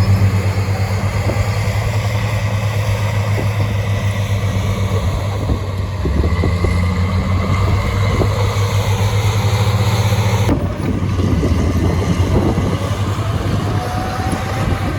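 Diesel engine of heavy earthmoving machinery running steadily. About two-thirds through the sound changes suddenly to a rougher, noisier engine sound.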